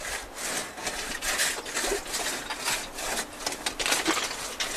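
A hand saw rasping through ice in irregular scraping strokes.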